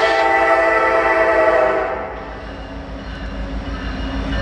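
Freight locomotive air horn sounding one steady chord that cuts off about two seconds in, followed by the low rumble of the approaching train growing louder.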